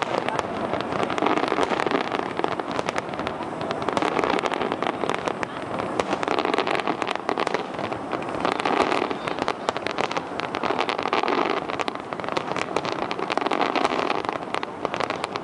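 Aerial fireworks display, many shells bursting in a dense, continuous run of bangs and crackles with no break.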